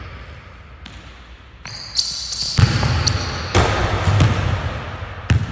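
A basketball bouncing on a hardwood gym floor amid sneaker footsteps and a jump landing: a string of sharp thumps begins about two seconds in. A high, steady squeal comes as the thumps begin.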